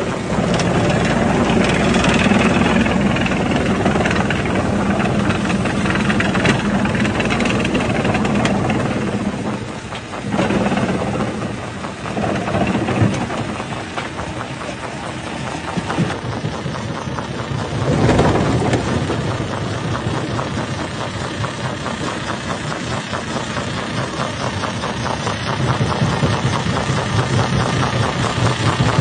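Rock-crushing machine running: a loud, continuous mechanical drone full of rattling and knocking as rock is broken. The level dips briefly about ten seconds in and surges about eighteen seconds in.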